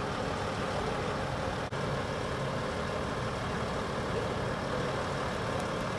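Crane truck's engine idling steadily, a constant low rumble, with a momentary dropout just under two seconds in.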